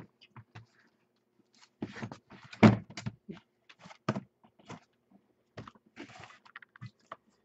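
Shrink-wrapped cardboard hobby boxes of trading cards being lifted off a stack and set down on a table: a series of short knocks and brief rustles, the loudest about two and a half seconds in.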